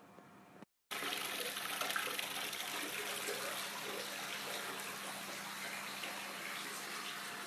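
Water running from a waterfall spout into a freestanding bathtub as it fills, a steady splashing hiss that starts abruptly about a second in.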